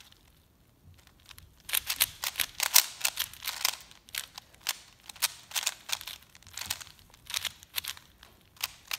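Plastic puzzle cubes, a 3x3 and a 4x4, being turned fast by hand: quick runs of sharp clicking and clacking as the layers turn. It starts after a second or so of near quiet, is busiest a little later, and then comes in scattered bursts.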